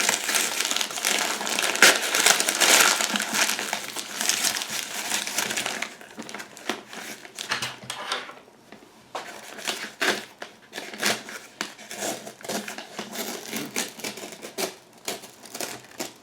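Paper packaging crinkling and rustling as a parcel is unpacked by hand, dense and loud for about the first six seconds, then thinning to scattered rustles and small clicks.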